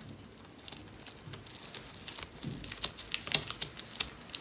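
Fingers pressing and spreading sticky sushi rice over a sheet of nori on a bamboo rolling mat: soft, irregular little clicks and rustles, sparse at first and more frequent from about halfway.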